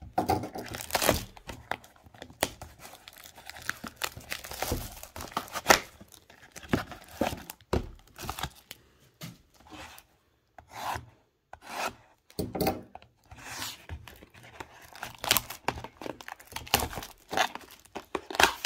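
Cellophane shrink wrap crinkling and tearing as a sealed trading card box is unwrapped, along with cardboard boxes being rubbed and handled. The sound comes as irregular sharp rustles and scrapes with short pauses between them.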